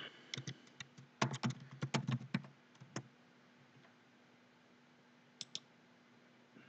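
Typing on a computer keyboard: a quick run of keystrokes for about three seconds, then two quick clicks about five and a half seconds in.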